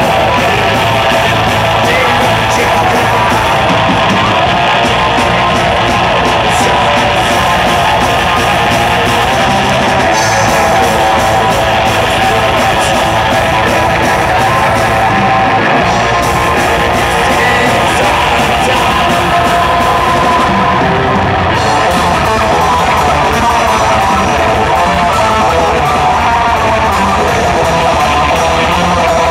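Three-piece metal band playing live and loud: distorted electric guitar, bass guitar and drums in a dense, unbroken wall of sound.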